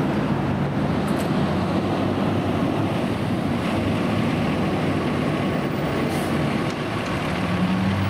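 A vehicle engine running with a steady low hum, with wind buffeting the microphone.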